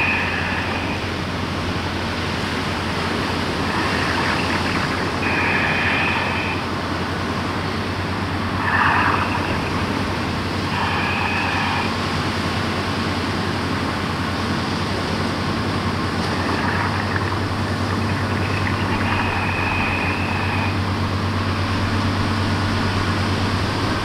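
Steady low hum of a grab crane barge's machinery across the water, over the noise of waves breaking and wind. Several short, distant calls cut through it now and then, the signals exchanged during the grab's raising and lowering.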